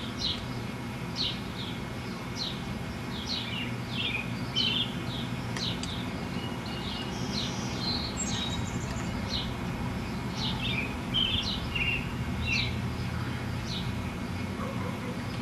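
A bird chirping over and over, short high falling notes about once a second, over a steady low background hum.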